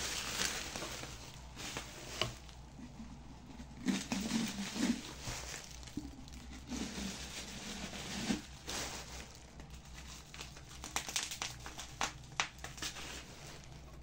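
Crinkling and rustling handling noise with scattered light clicks and knocks, coming and going irregularly.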